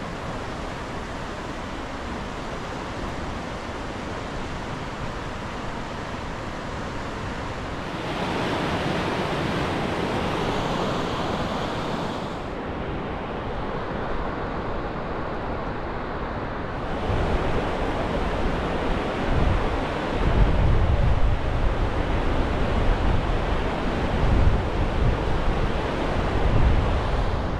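Steady rush of a waterfall or fast river. From a little past halfway, gusts of wind buffet the microphone with a low rumble.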